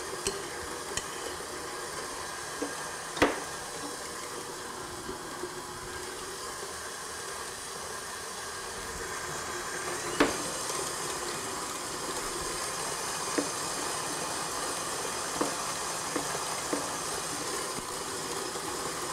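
Stand mixer running steadily as it beats a cream cheese mixture, with a few sharp knife taps on a plastic cutting board as strawberries are sliced.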